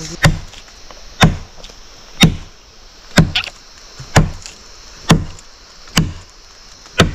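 A long machete-like blade chopping into a standing tree trunk, about one blow a second, eight blows in all, each a sharp crack with a dull thud of the wood.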